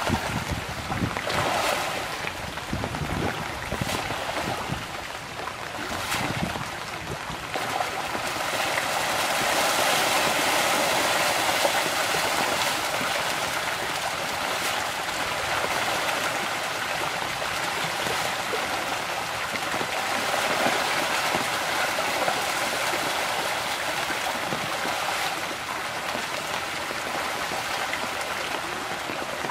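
A dense shoal of pangasius catfish thrashing and splashing at the pond surface in a feeding frenzy: a steady churning rush of water that grows louder about eight seconds in.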